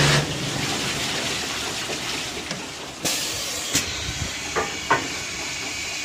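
Water jets spraying inside a four-head 5-gallon barrel rinsing machine, a steady hiss. A machine hum cuts off right at the start, and several sharp clicks come from about three to five seconds in.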